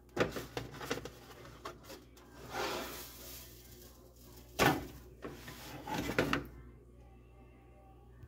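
A rack of baby back ribs being turned and rubbed with seasoning on a metal sheet pan. There are a few sharp knocks and clatters of the pan, and a short rubbing, scraping stretch about two and a half seconds in.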